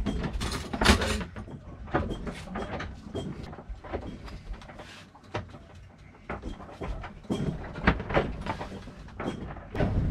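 Kitchen-work clatter in a boat's galley: a wooden cupboard door and dishes and utensils knocking and clicking at irregular moments, with the loudest knock about a second in.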